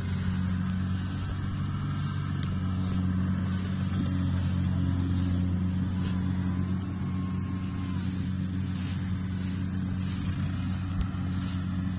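Rice combine harvesters' diesel engines running steadily under load, a constant low drone.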